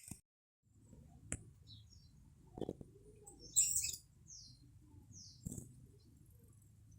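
Birds chirping: a burst of high, sharp chirps about halfway through, followed by two quick downward-sliding notes, with a few soft knocks in between.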